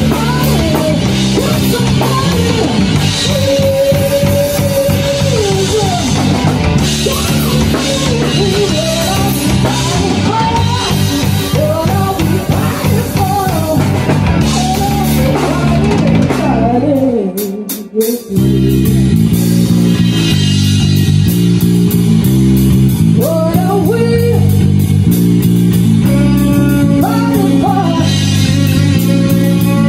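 Live rock band playing: drum kit keeping a steady beat, electric guitar and electric bass, with a lead vocal. The music drops out for a moment just past halfway, then comes back in.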